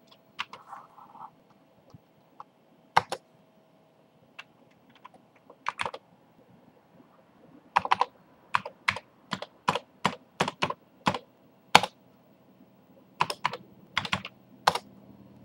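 Typing on a Commodore 128's keyboard over a faint steady hum: scattered single keystrokes at first, then a quicker run of about a dozen keys in the middle and a few more near the end, entering a BBS login.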